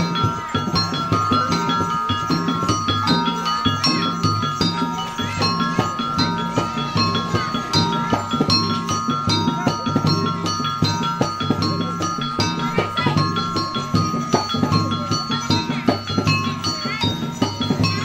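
Percussion music of tuned metal instruments struck with mallets, playing fast repeated ringing notes over a steady low pulse.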